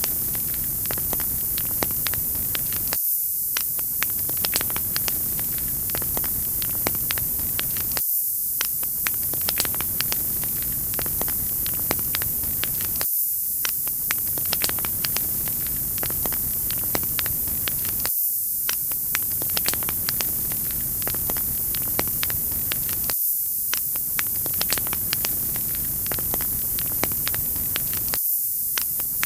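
Wood fire crackling in a fireplace: a steady hiss with many sharp pops and snaps. The same short stretch of sound loops about every five seconds.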